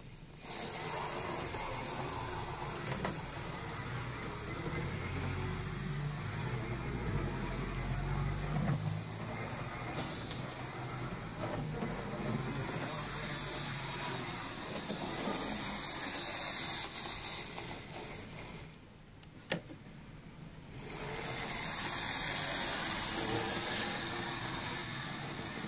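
Model railway locomotives running on track: a steady whir of small electric motors and wheels on the rails. About two-thirds through it drops away for a couple of seconds, with a single click, then resumes.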